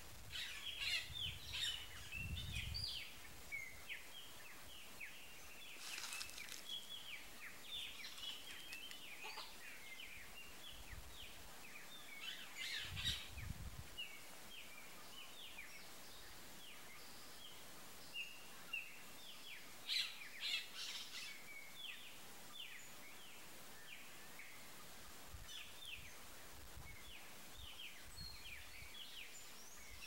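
Small birds chirping in many short, quick high notes that keep overlapping, denser in spells about 1, 6, 13 and 20 seconds in, with a low rumble of wind or handling noise near the start and again about 13 seconds in. No low motmot hoot stands out.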